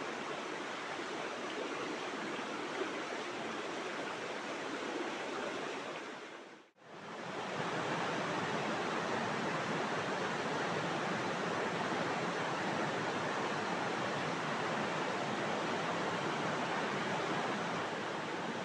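River water rushing steadily past, a continuous hiss of flowing water; it fades out briefly about seven seconds in and comes back slightly louder.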